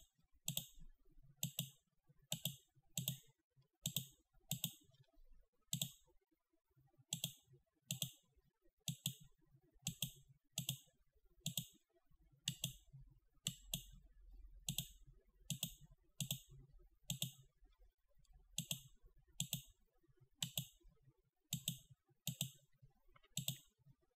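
Computer mouse clicking over and over, about one to two short sharp clicks a second at a slightly uneven pace.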